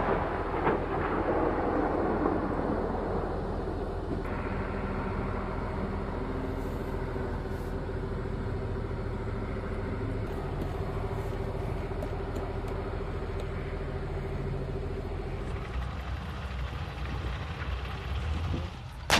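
Leopard main battle tank on the move, its engine and tracks running steadily with a constant whine. It opens on the fading rumble of a tank gun's shot, and a sharp bang comes right at the end.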